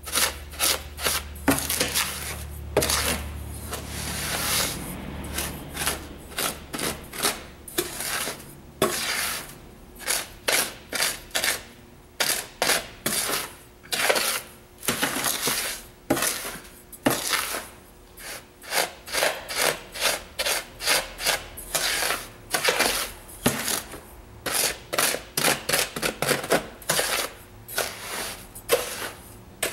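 Coarse bath salts being mashed and stirred in a plastic cement-mixing pan, pressed and scraped against the bottom to break up essential-oil clumps: a run of short gritty scraping and crunching strokes, about one or two a second.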